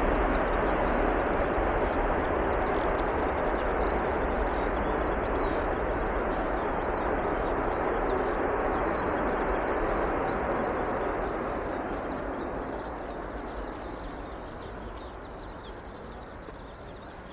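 Jet engine noise from an Airbus A380-800's four Rolls-Royce Trent 900 engines as it moves along the runway: a steady rushing noise that fades from about ten seconds in as the aircraft draws away. Birds chirp and trill throughout.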